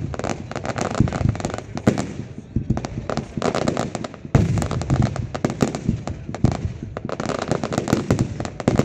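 Fireworks going off in quick succession: a dense run of crackling pops and bangs, with heavier blasts every two to three seconds.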